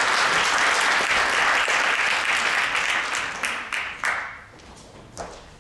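Audience applauding, dying away about four seconds in, with a few scattered claps after.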